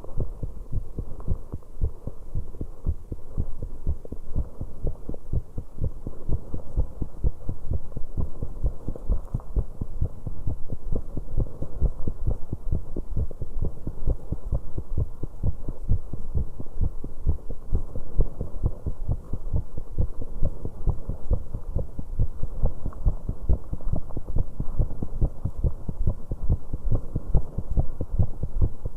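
Human heart sounds: a fast, pounding heartbeat after exercise on a stationary bike, the beats following closely one after another.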